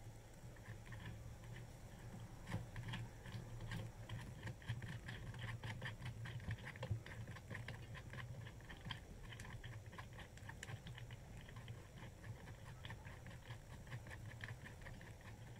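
Irregular light clicks and taps of plastic and metal parts being handled, as threaded clamp rods with rubber knobs are fitted into the plastic frame of an angle grinder sliding stand.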